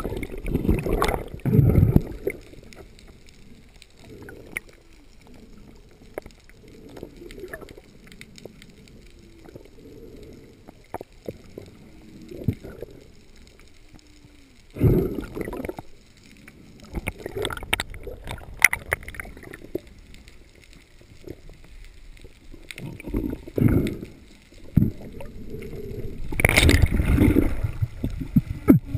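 Underwater sound heard through a diving camera's housing: muffled rushing of water that swells in surges, loudest near the start and in the last few seconds, with scattered faint clicks throughout.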